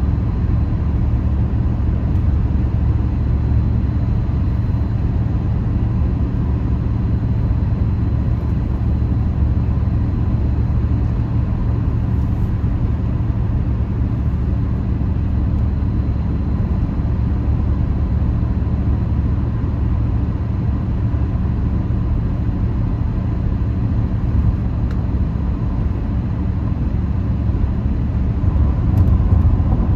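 Steady low rumble of a car's engine and tyres on the road, heard from inside the cabin while driving on a highway.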